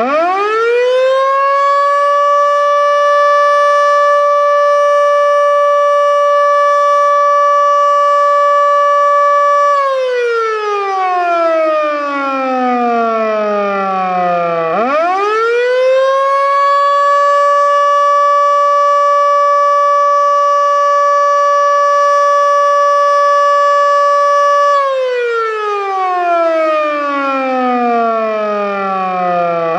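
Federal Signal Model 2 single-tone electromechanical civil defense siren sounding a test wail. It winds up quickly to a steady high tone and holds it for about ten seconds, then winds down for about five seconds. It winds straight back up and goes through the same cycle a second time.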